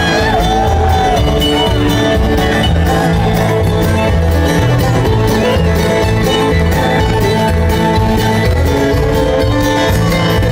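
Bluegrass band playing live: banjo, acoustic guitars, mandolin and upright bass, with the bass keeping a steady beat under quick picked notes.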